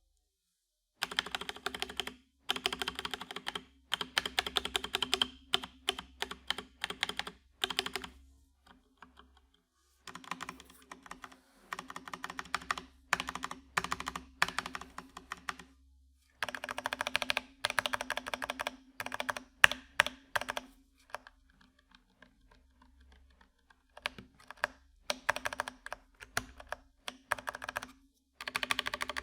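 FL eSports 980 mechanical keyboard with Kailh BOX Brown tactile switches, its keys pressed rapidly over and over in runs of a second or two with short pauses between, testing the stabilizers and switches. The keyboard sits on a 3 mm desk mat.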